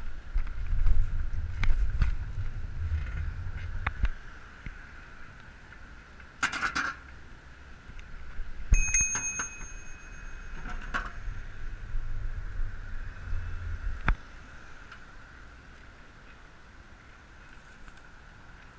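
Bicycle bell rung once about nine seconds in, a sharp ding whose ring fades over about a second. Around it are the rumble and rattling of the bicycle rolling along the pavement.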